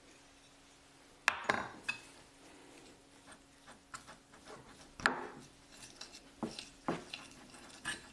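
Metal spoon and fork clinking and scraping against a ceramic plate while flour is mixed into a dough, with a sharp tap about a second in, a louder one near the middle, and a run of lighter taps and scrapes toward the end.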